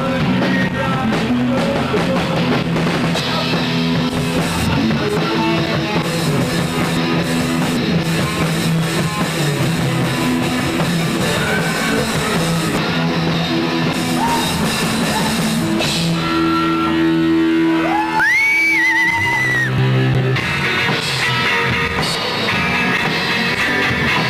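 Live rock band playing with guitar and drum kit, loud and continuous. About eighteen seconds in, a high note slides up and is held for about two seconds.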